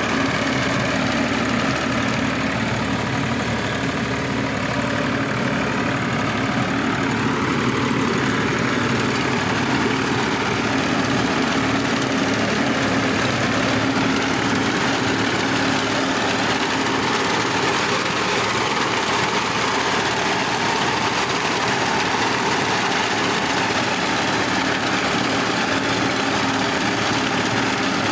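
Diesel tractor engine running steadily under load while it drives a tractor-mounted reaper through standing rice (paddy), cutting the crop.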